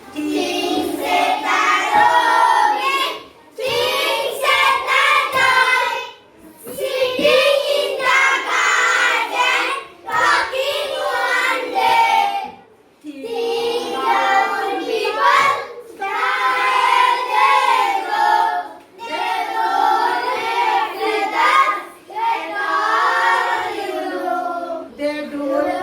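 A class of children singing an English poem together to a simple tune, in sung phrases of a few seconds with short breaths between them.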